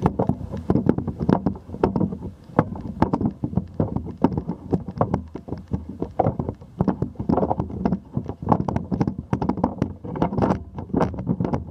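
Handling noise from a camera mounted on a raised pole: a steady jumble of irregular knocks, clicks and rubbing as the pole sways and is moved about.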